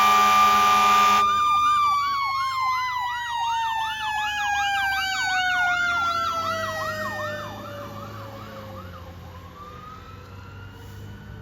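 Fire engine's air horn blasting over its sirens, cutting off about a second in. A siren tone then slides slowly down in pitch, with a second siren warbling rapidly over it, both fading away as the engine passes and moves off.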